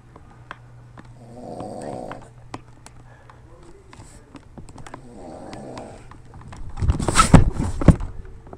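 A man snoring while passed out: two slow snores about four seconds apart, with scattered small clicks between them. Near the end a much louder burst of knocks and rustling.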